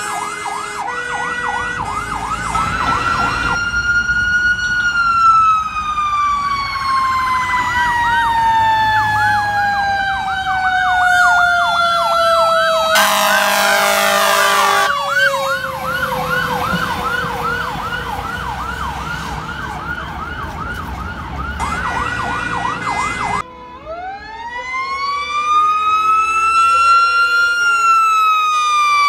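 Fire truck sirens: an electronic siren yelps rapidly, while a mechanical siren (Federal Q type) winds down in a long falling whine, and a horn blasts for about two seconds near the middle. After a cut, a mechanical siren winds up to a high whine and starts to coast down, over a two-tone horn alternating between two notes.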